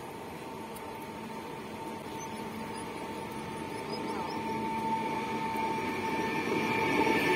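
Koleje Wielkopolskie 48WEb electric multiple unit approaching and pulling into the platform, its sound growing steadily louder as it nears. A steady whine runs through it, and wheel-on-rail rumble builds near the end.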